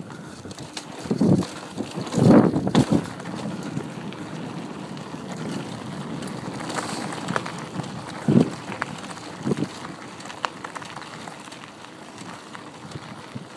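Mountain bike rolling fast down a dirt and gravel trail: steady tyre rumble and wind on the microphone, with a few thumps and rattles from bumps, the loudest about two seconds in.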